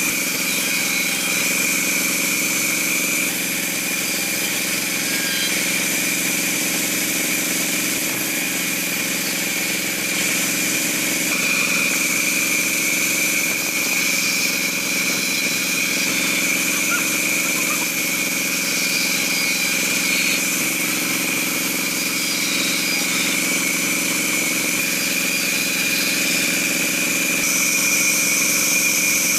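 Band saw running steadily as it rips an acacia timber lengthwise, with a constant high whine over the motor's hum.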